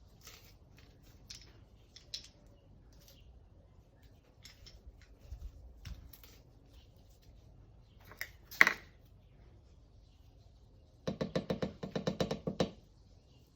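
Kitchen utensils being handled while a sauce is mixed: scattered light clicks and taps, a sharper clack about nine seconds in, and near the end a quick run of rapid ringing strikes of a utensil against the pot or cup as the sauce is stirred.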